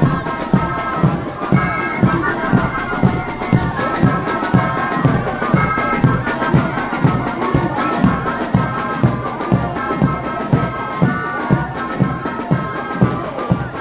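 Marching band music: wind instruments play a tune in held notes over a bass drum beating about twice a second.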